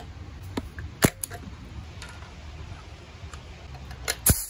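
Sharp metallic clicks from handling the leak-down tester's air fittings, with one loud click about a second in. Near the end a brass quick-connect coupler snaps onto the tester's fitting: a few loud clicks and a brief burst of hiss.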